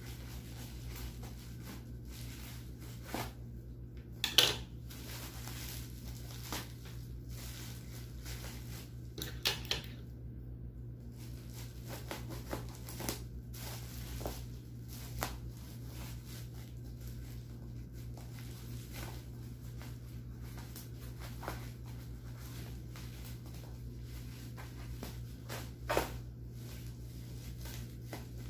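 Scissors cutting through a tape-wrapped bundle, with many small snips and clicks of the blades and the tape. There are a few louder snips or tears, about four seconds in, near ten seconds and again near the end. A steady low hum runs underneath.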